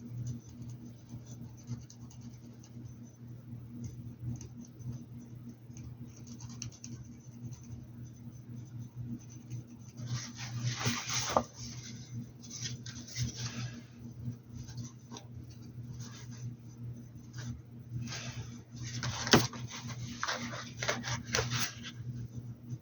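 Paintbrush scratching and rubbing as paint is worked onto a hat, in two louder bouts about ten and eighteen seconds in, with one sharp click during the second. A steady low hum runs underneath.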